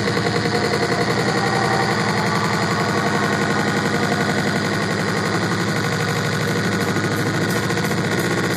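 Loud live music played through a concert venue's sound system, with a fast, even, stuttering pulse running through it.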